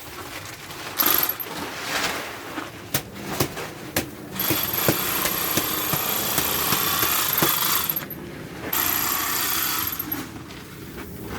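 Handheld electric bag-closing sewing machine stitching a filled grain sack shut: a steady run of about three and a half seconds with a thin high whine, a short break, then a shorter second run. A few sharp knocks come before it.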